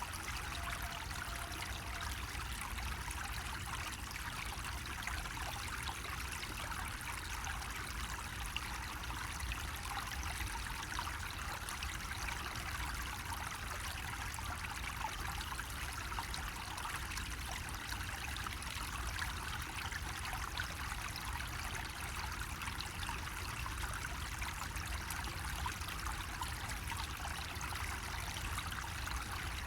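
Water running steadily from a bamboo spout, a continuous trickling splash with no knocks or breaks.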